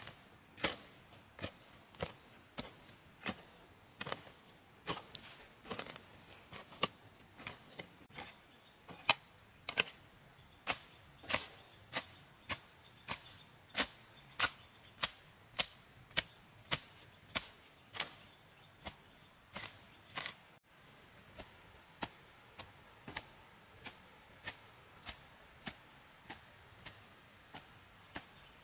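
Repeated chopping blows of a hand tool into wood, about one or two a second at an uneven pace, briefly breaking off about two-thirds of the way through and then going on a little softer. Insects trill steadily behind.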